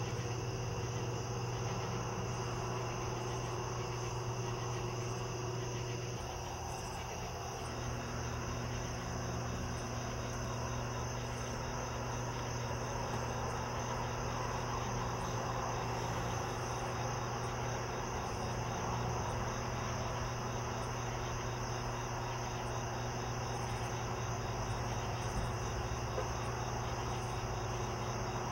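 Night insect chorus, crickets calling steadily in high continuous trills, over a steady low hum.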